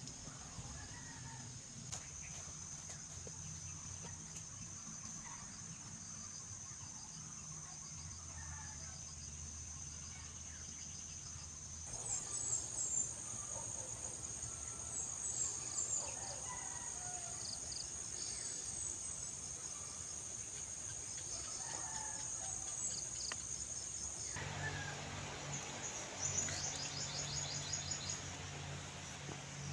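Farmyard ambience: a steady high-pitched insect drone with scattered bird chirps and faint chicken calls. The background changes abruptly twice, about twelve seconds in and again near the end.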